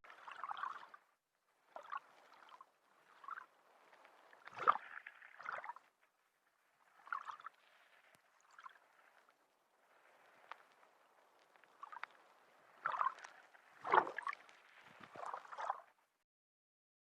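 Underwater gurgling: short, faint bubbly bursts coming one after another with silent gaps between, two of them louder, about five and fourteen seconds in.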